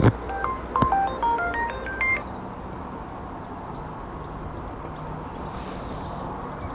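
A short tune of quick beeping notes that stops about two seconds in, followed by steady outdoor background hiss with faint high chirps.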